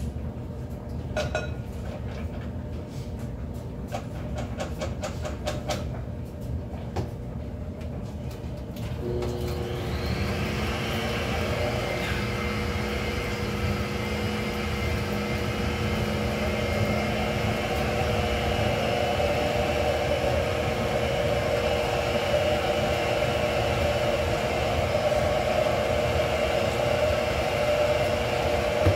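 A few spoon taps and scrapes against a glass mixing bowl. About nine seconds in, an electric stand mixer switches on and runs steadily, its motor humming and whirring as it beats sour cream, slowly growing a little louder.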